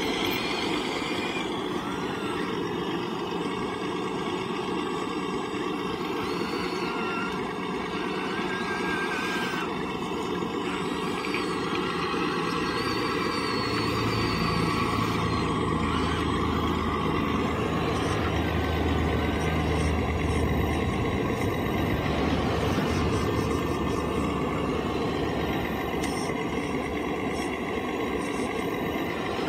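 Radio-controlled hydraulic scale excavator working: its hydraulic pump drones steadily, with short whines that rise and fall as the boom, arm and bucket move. The drone gets slightly louder and deeper for a stretch in the middle.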